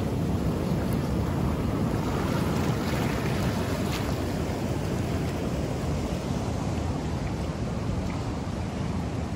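Ocean waves breaking on a beach, a steady rush of surf, with wind buffeting the microphone.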